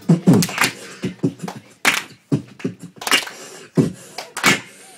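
Beatboxing into a microphone: a vocal beat of sharp kick- and snare-like hits, about two to three a second.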